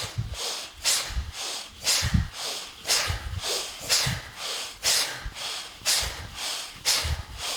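Rapid, forceful rhythmic breathing in a round of Chit Shakti Prakriya pranayama: sharp, hissy breaths about once a second, with softer breaths between them.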